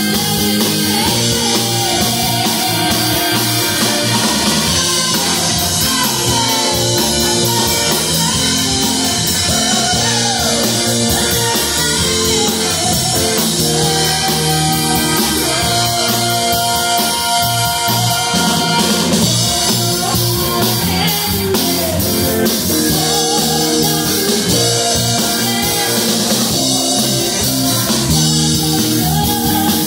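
Live rock band playing: a woman sings lead into a microphone over two electric guitars, bass guitar and drum kit.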